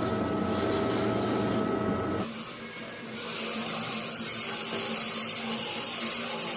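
Small electric motor whirring steadily, cutting off abruptly about two seconds in; a steady high hiss follows.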